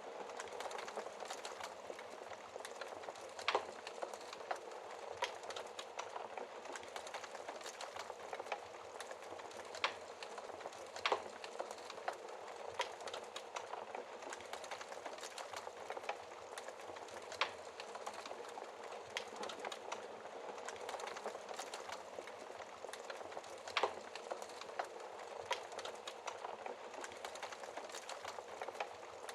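Wood fire crackling in a fireplace: a steady bed of small crackles with frequent sharp pops, a few of them louder.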